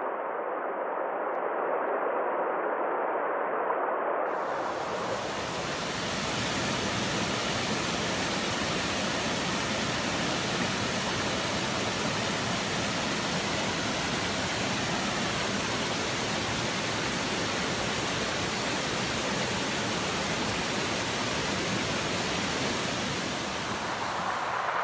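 Waterfall: a steady rush of falling water. About four seconds in it cuts abruptly to a different recording of falling water with more hiss, which holds steady.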